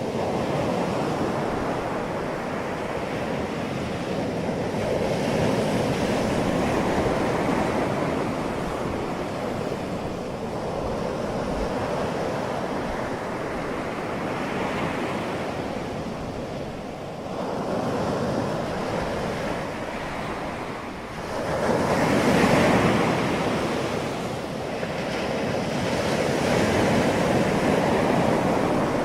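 Ocean waves breaking and washing up the shore, a continuous surf that swells and eases every few seconds, with the loudest break about three quarters of the way through.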